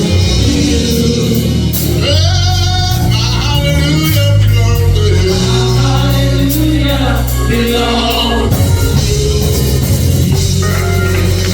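Gospel singing with live band accompaniment: a singing voice with wavering held notes over a steady bass line and drums.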